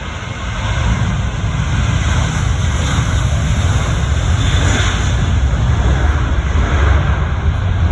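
Boeing 737-800 jet airliner taking off, its CFM56 turbofans at takeoff power: a steady loud jet noise with a deep rumble that swells in over the first second and peaks a little past the middle.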